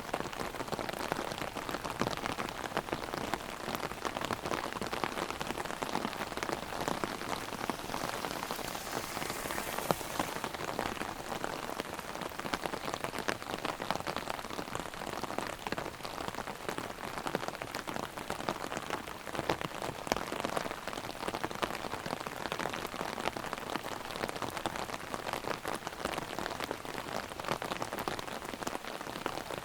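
Heavy rain hitting an umbrella overhead: a dense, steady patter of drops.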